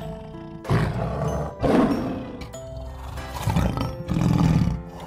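Lion roaring in four loud bursts over light background music.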